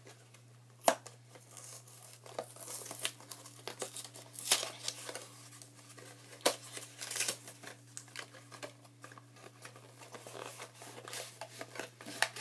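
Packaging of a Magic: The Gathering intro pack being torn open and crinkled: irregular rustling and ripping with a few sharper snaps.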